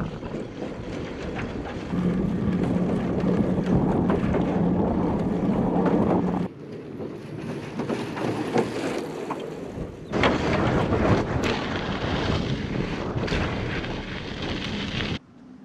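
Wind buffeting the microphone over the rolling noise of a Hyper Explorer mountain bike's tyres on a boardwalk and a gravel trail, with a steady low hum from about two seconds in to about six. The sound drops and jumps abruptly twice as the shots change, and drops again near the end.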